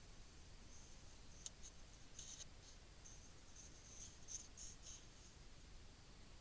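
Near silence: faint steady hiss, with a scatter of faint, short, high-pitched ticks from about one to five seconds in.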